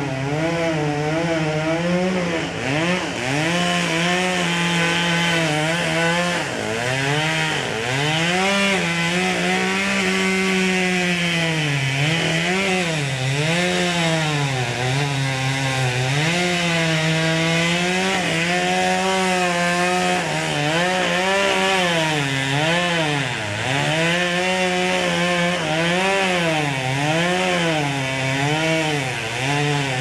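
Chainsaw cutting through a tree trunk. Its engine pitch repeatedly sags as the chain bites into the wood and climbs back as it frees up, many times over.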